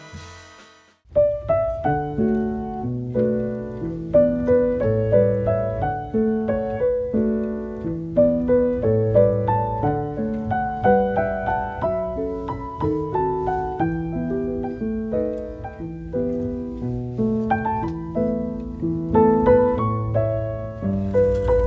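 Background piano music: a gentle melody over a low bass line, starting about a second in after the quiet tail of a different tune.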